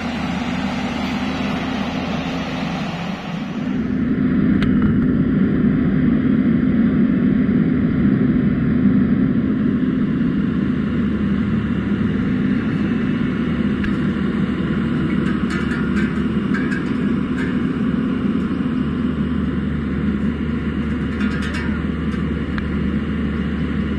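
Caterpillar hydraulic excavator's diesel engine running steadily under load as it digs and dumps soil, stepping up in loudness about 3–4 seconds in. A few short sharp sounds cut through the engine in the second half.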